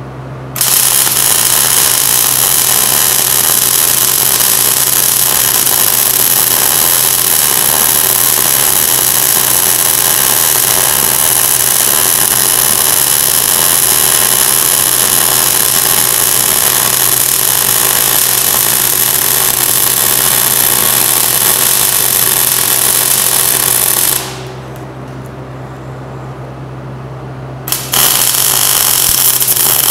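Wire-feed welder arc running steadily as a weld bead is laid joining the eye back onto a hydraulic cylinder rod. The arc strikes about half a second in, breaks off for about three seconds near the end, then strikes again, over a low steady hum.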